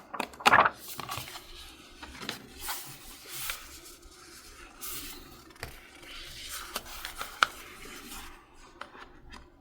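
Paper and stickers being handled on a desk: irregular rustling and crinkling with small clicks and taps, the loudest a crinkle about half a second in and a sharp tick about seven and a half seconds in.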